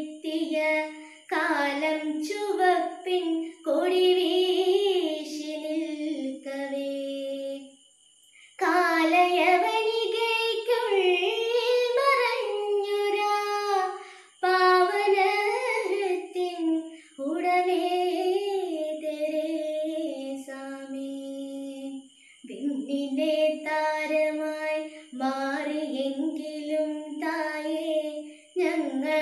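A single high voice singing a slow, melodic song, with little or no accompaniment. The phrases are separated by short breaths or pauses.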